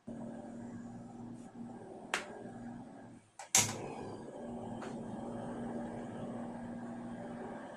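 A steady low mechanical hum with a few sharp clicks. The hum cuts out briefly just before the loudest click, about three and a half seconds in.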